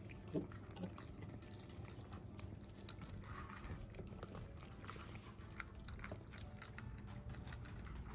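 Several cats eating dry kibble from ceramic bowls: faint, irregular crunching with many small clicks.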